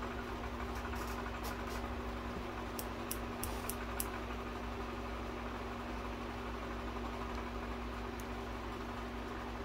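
Electric room fan running with a steady hum and airy noise. A few faint light clicks in the first four seconds or so.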